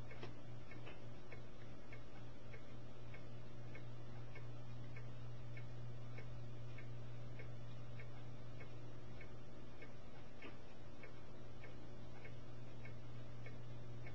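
A steady low hum with faint, regular ticking over it, about three ticks a second.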